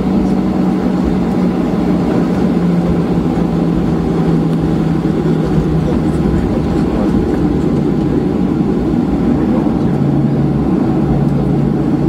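Steady cabin noise of a Boeing 737-700 taxiing after landing, its CFM56-7B engines at low taxi power. A low hum under the rumble steps down in pitch about ten seconds in.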